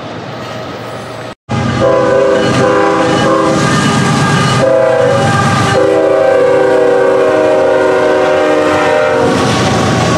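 Lead locomotive of a CSX freight train sounding its multi-chime air horn in several blasts, a short one midway and a long one near the end, over the rumble of the diesel locomotives and their wheels on the rails as the train passes close by. A brief dropout about a second and a half in.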